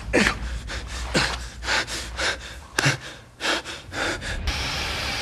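A wounded man's ragged, gasping breaths, a quick run of short inhales and exhales, as he crawls. About four and a half seconds in, a steady hiss of steam escaping from a pipe valve starts abruptly.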